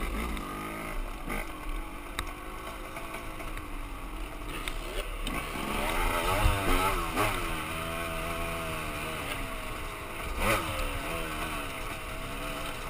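Dirt bike engine on a trail ride, heard up close from the rider's own machine, its pitch rising and falling repeatedly as the throttle is worked, with a few short knocks along the way.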